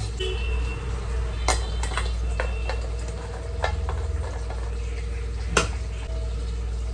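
A knife cutting a green vegetable by hand, with pieces dropping into a steel bowl. There are about six sharp metallic clinks, the loudest about one and a half seconds in and near the end, over a steady low hum.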